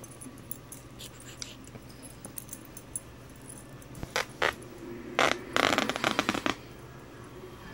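A dog tugging and shaking a blanket: scattered small clicks, then a run of sharp rustling bursts from about four to six and a half seconds in as the blanket is yanked back and forth.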